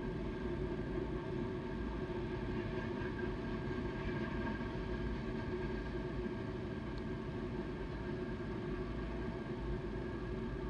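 A steady mechanical drone with a constant hum that neither rises nor falls, and a car driving by near the end.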